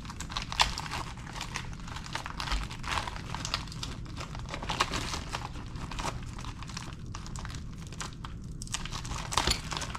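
Plastic packaging crinkling and rustling in irregular crackles as small parts are unpacked and handled.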